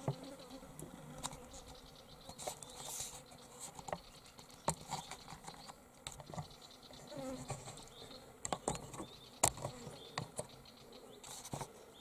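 Dry eucalyptus leaf litter crunching and crackling in short scattered clicks as someone moves over the forest floor, with insects buzzing faintly.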